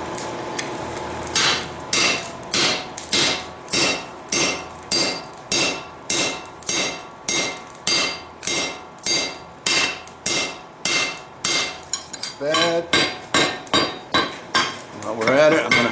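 Hand hammer driving a steel drift through a hole punched in a red-hot steel bar on an anvil, with steady blows about two a second, each one ringing. Near the end the blows come quicker and lighter.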